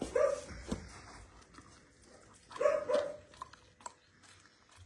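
A dog whines briefly at the start and twice more about halfway through, with faint smacking clicks as an old dog eats wet food from a hand.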